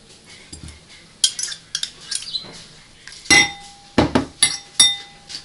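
A fork clinking and scraping against dishes while lifting out canned zucchini: a series of sharp clinks, some ringing briefly, the loudest coming in a cluster between about three and five seconds in.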